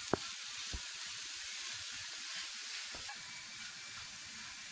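Chopped onion, carrot and capsicum sizzling in oil in a pan as they are stirred, a steady hiss, with one sharp knock of a wooden spatula against the pan just after the start and a couple of fainter knocks later.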